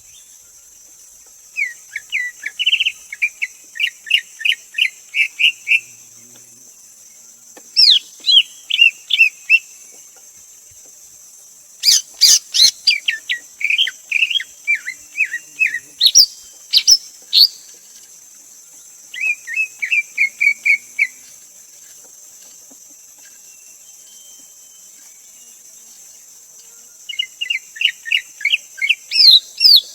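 Greater green leafbird singing: phrases of quick, clear whistled notes, several a second, each phrase lasting a few seconds with pauses between. A steady high hiss runs underneath.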